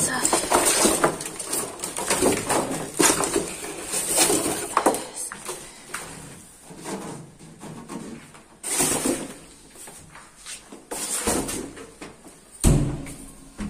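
Washing machine being handled during unpacking: irregular scrapes, squeaks and knocks from the molded foam packaging and the machine's casing, with a heavy thump near the end as the machine is shifted on the floor.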